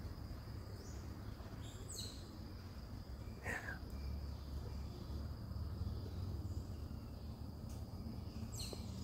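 Outdoor ambience: a steady high-pitched insect drone, with a few short bird calls: chirps about two seconds in, a falling call a little later, and another call near the end.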